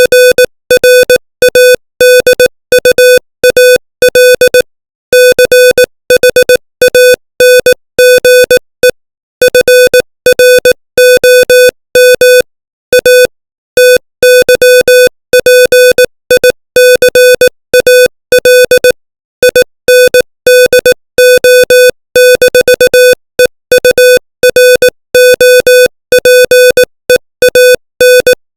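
Morse code sent at 18 words per minute: a single steady mid-pitched beep keyed on and off in short dots and longer dashes, with silent gaps between letters and words, spelling out English text.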